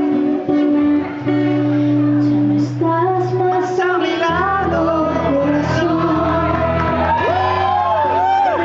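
Acoustic guitar strummed while a woman sings a ballad into a microphone. Held notes at first, then a wavering sung melody that slides up and down in long drawn-out notes near the end.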